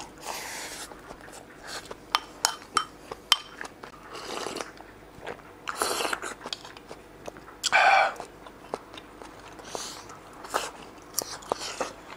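A person eating dry curry and rice: chewing, with many sharp clicks of chopsticks against the bowls. Several short noisy bursts, among them a sip from a bowl of miso soup around the middle.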